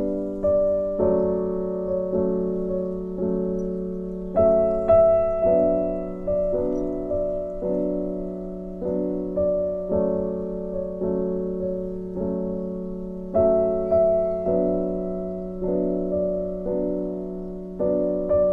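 Background music: a gentle piano tune, with notes struck about once a second, each fading before the next.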